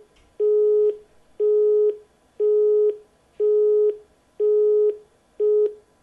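Telephone busy tone: one steady pitch sounding in even half-second beeps, about one a second, six times.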